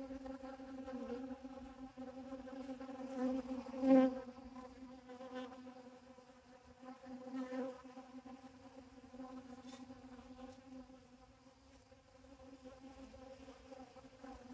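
Honeybees buzzing as they fly in and out of a flower gathering pollen. Their wings make a steady hum that swells louder about four seconds in and again near eight seconds as bees pass close.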